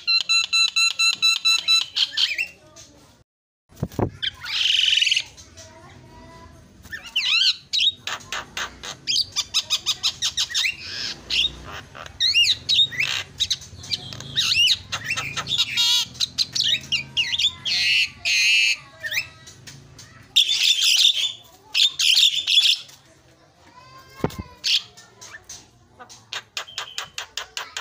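Javan myna (jalak kebo) calling: a rapid string of clicking notes, then a varied run of harsh squawks, whistles and chatter, with a brief break about three and a half seconds in.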